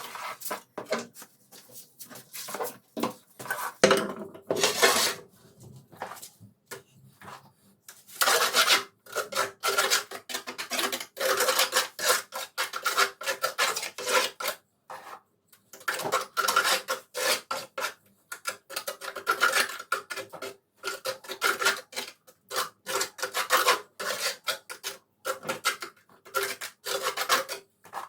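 A hand tool scraping and rubbing on tile or mortar in quick repeated strokes, coming in bursts of several seconds with short pauses between them.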